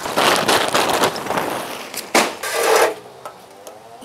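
Lump charcoal poured from a bag into a metal chimney starter, the chunks clattering and rattling for about three seconds with one sharp knock partway through, then stopping.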